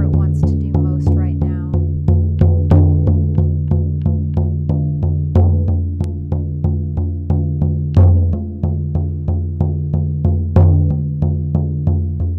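Hand-held frame drum struck with a beater in a steady shamanic journey beat of about three strokes a second, each stroke leaving a low ringing tone. A couple of strokes, about eight and ten and a half seconds in, are louder than the rest.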